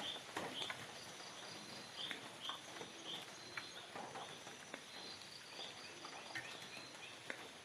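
Forest ambience: a steady high-pitched insect drone, short chirps repeated every half second or so, and scattered light clicks and crackles.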